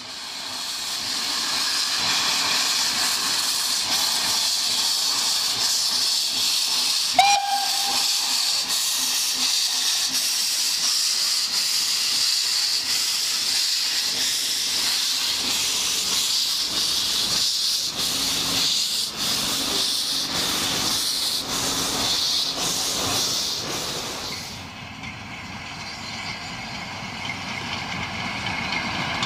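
Narrow-gauge steam locomotive Mh.6 hissing loudly as steam blows from its cylinder drain cocks while it starts away. It gives one short whistle blast about seven seconds in. From about halfway there are beats of exhaust as it gets moving, and near the end a quieter sound of the train running.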